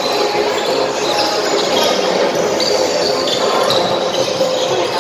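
Steady crowd chatter from spectators around a basketball court, with a basketball bouncing and short high squeaks of sneakers on the court floor.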